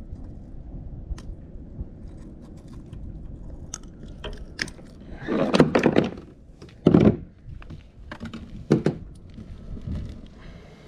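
Knocks, clicks and rubbing as gear is handled aboard a plastic kayak and the hull rides up to a dock piling, over a low steady rumble. Three louder scraping bursts come about five, seven and nine seconds in.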